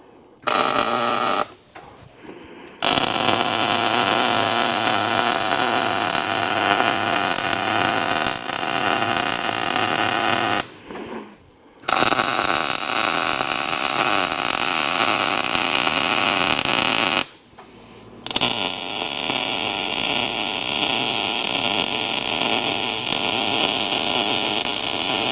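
Miller MIG welder welding bent steel tubing: a short burst about half a second in, then three long steady runs of several seconds each, with brief pauses between beads.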